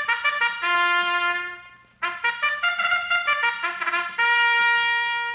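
Solo trumpet playing a fanfare in two phrases of quick short notes, each ending on a held note; the second phrase starts about two seconds in, and its last note is held and begins to fade near the end. The recording is from a 1946 radio transcription disc.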